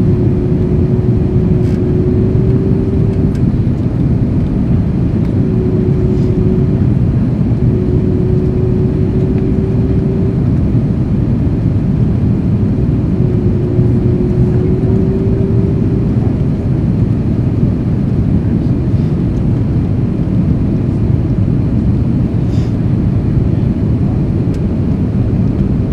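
Steady cabin noise inside an Airbus A330-300 on approach to land, engine and airflow noise heard from a seat over the wing. A faint steady hum sits on top of it, coming and going several times in the first sixteen seconds.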